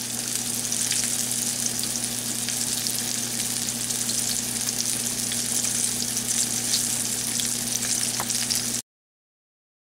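Flour-coated chicken drumsticks frying in hot oil in a skillet: a steady sizzle with scattered small pops over a low steady hum. It cuts off suddenly near the end.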